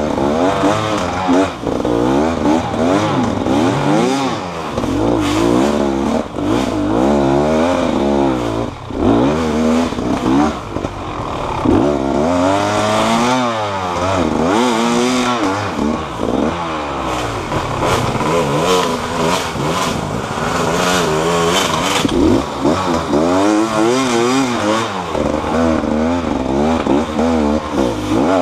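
A vehicle engine, most likely a motorcycle, revving up and down over and over, its pitch rising and falling every second or two, with some clatter and scraping mixed in.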